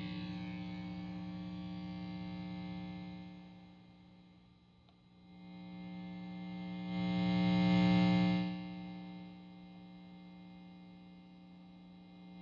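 Buzz and hum from a PRS HDRX 20-watt guitar amplifier: a steady, many-toned electrical drone. It fades low about four seconds in, swells to its loudest around eight seconds, then drops back to a lower level. This is the unwanted noise the amp is being checked for.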